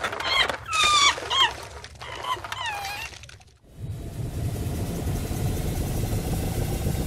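Squeaky, animal-like chattering calls from a cartoon alien, in several short groups with gliding pitch. About three and a half seconds in they stop and a flying saucer's steady low hum takes over.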